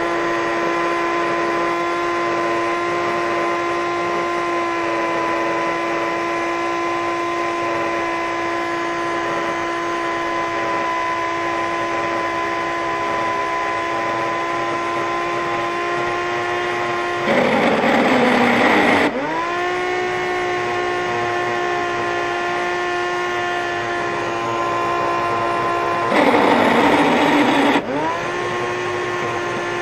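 Old Shop-Vac wet/dry vacuum motor running with a steady high-pitched whine, which the owner takes for the bearings going out. Twice, about 17 s and 26 s in, a louder rushing noise lasts about two seconds, after which the whine climbs back to pitch.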